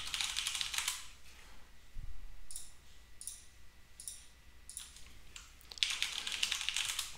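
Typing on a computer keyboard in two quick runs of keystrokes, one at the start lasting about a second and another near the end, with a few single clicks between them.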